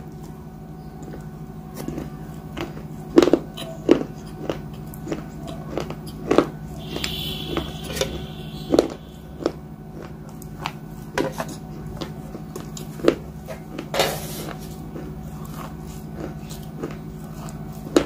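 Close-up chewing of a crunchy bhel-style snack of sev and peanuts: irregular sharp crunches and wet mouth sounds. About seven and fourteen seconds in come two longer sipping sounds from a steel bowl of water. A low steady hum runs underneath.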